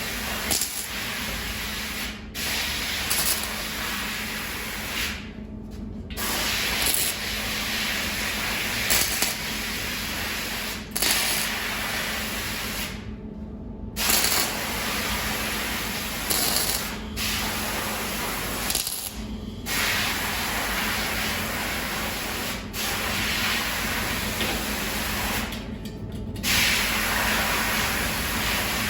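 Welding arc crackling and hissing in runs several seconds long, stopping briefly between runs, over a steady low hum from the welding machine.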